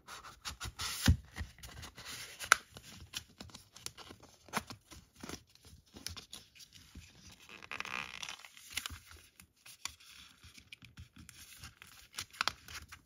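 Printed cards and card packaging being handled at close range and slid back into their holder: rustling, scraping and crisp clicks, with two sharp taps in the first few seconds and a longer scraping slide a little after the middle.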